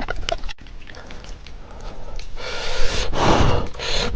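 Noodles being slurped close to the microphone: a few faint mouth clicks, then three loud, hissing slurps in the second half.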